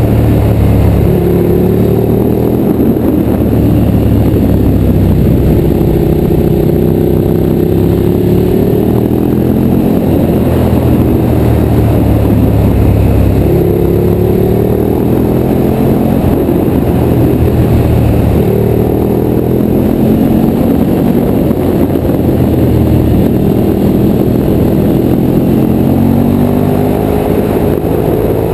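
Motorcycle engine running under way, its pitch climbing and then dropping again several times as the rider accelerates and eases off through the bends, over a heavy low rumble.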